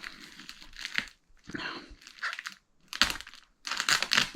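Packaging material crinkling and rustling in a string of irregular handling bursts as a parcel is unpacked, loudest near the end.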